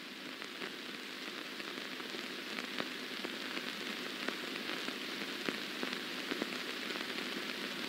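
Surface noise from a 16mm film print's soundtrack during a silent stretch: a steady, quiet hiss with scattered crackles and pops from dust and wear on the print.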